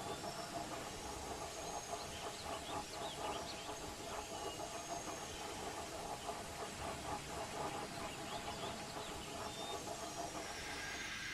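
Steam locomotive running along the line: a steady hiss of steam with quick, even chuffing.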